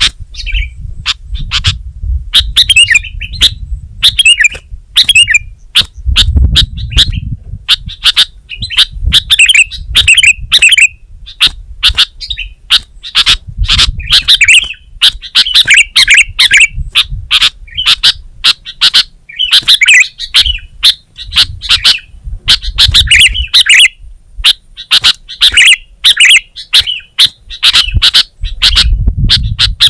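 Sooty-headed bulbul (kutilang) singing without pause: quick, bright chirping phrases repeated over and over, with sharp clicking notes. A low rumble comes and goes underneath.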